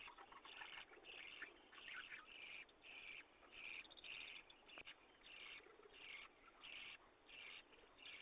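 A bird calling over and over, short calls at about one and a half a second, with a brief pause about five seconds in.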